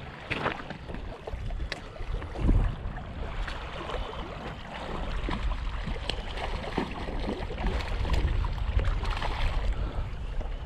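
Water splashing and sloshing as a small hooked sea trout thrashes at the surface in the shallows, with wind rumbling on the microphone.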